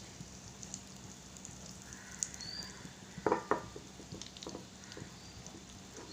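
Stuffed squid coated in egg and breadcrumbs shallow-frying in coconut oil over a low flame: a quiet, steady sizzle with scattered small pops, and a couple of sharper clicks about three seconds in.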